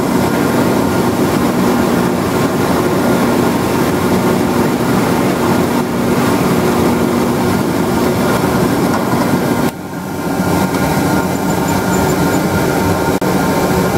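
Drill press spinning a hole saw through veneer core plywood to cut out a toy wheel, with a dust-collection vacuum running alongside in a steady drone. About ten seconds in the sound briefly drops and changes as the cut ends, then the machines keep running.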